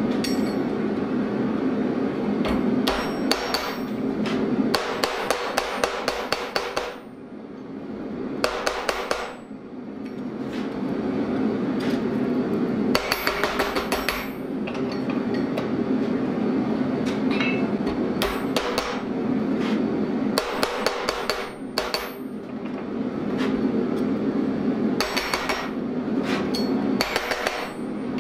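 Hand hammer striking red-hot steel bar stock on a steel swage block, bending it into the curved tines of a grappling hook. The blows come in quick runs of about a second, with short pauses between them, over a steady low hum.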